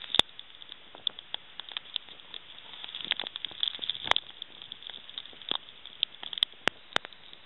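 Rain falling in a thunderstorm: a steady hiss dotted with many irregular sharp taps of drops striking close by.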